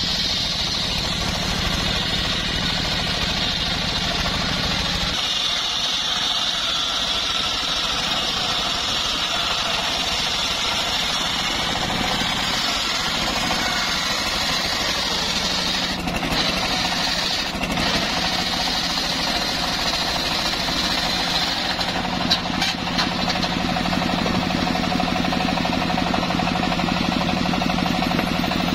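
Homemade engine-driven table circular saw ripping a mahogany log lengthwise: the machine runs steadily under load, with a steady high-pitched cutting sound from the blade in the wood. A few brief ticks come about two-thirds of the way through.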